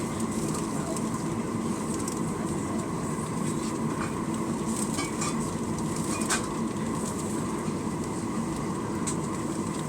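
Rear-cabin noise of a Boeing 737-900ER on the ground: its CFM56-7B turbofans and the airframe make a steady rumble with a faint steady hum, and a few light knocks and rattles, typical of the aircraft taxiing before takeoff.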